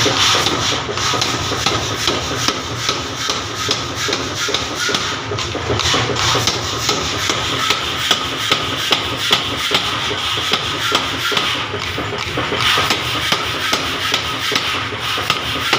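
Steel being forged under a hammer: a steady run of sharp hammer strikes on metal, over a continuous rushing noise.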